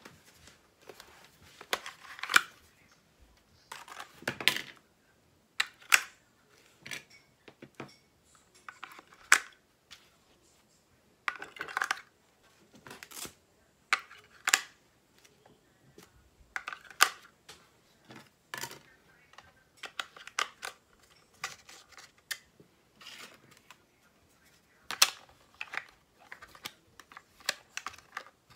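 Hands handling small plastic parts and wires on an RC truck chassis: irregular sharp clicks, taps and brief rustles.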